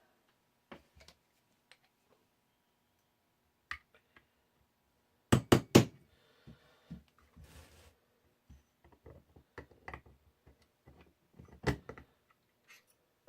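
Hammer strikes on a pin punch driving out the back strap pin of a Smith & Wesson 469 pistol frame: three quick sharp blows about five seconds in and another knock near the end, between lighter clicks and taps of the tools and gun being handled.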